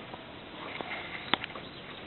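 A few small clicks and faint rustling, with one sharp click a little past halfway.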